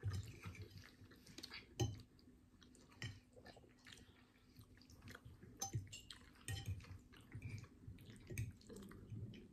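Soft chewing and wet mouth sounds of someone eating pasta with meatballs, picked up close by the microphone. Scattered sharp clicks of a metal fork against the plate run through it.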